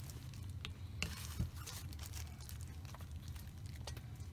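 Faint handling noise: a few light clicks and paper-towel crinkling as a disassembled spinning reel is moved about and set down on paper towels.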